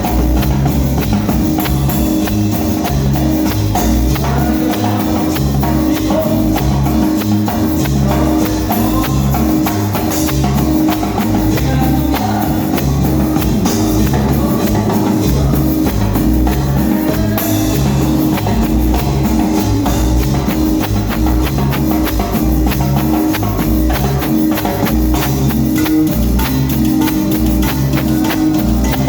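Band music with a steady beat: a repeating bass line under drums and percussion.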